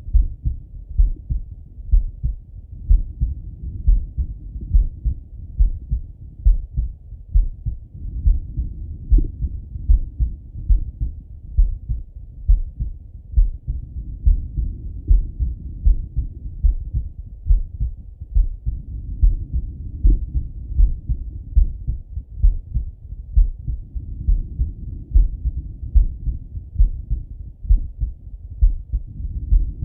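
A man's heartbeat heard through a stethoscope chest piece: steady, slow, low lub-dub thumps at about one beat a second.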